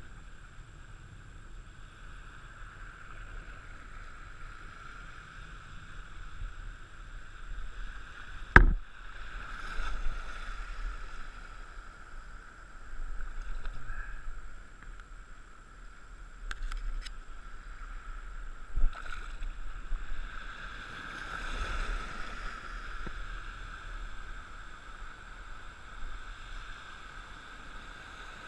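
Small boat on the water: a steady hum with water swishing and lapping, swelling now and then, and a sharp knock about a third of the way in and a lighter one about two-thirds through.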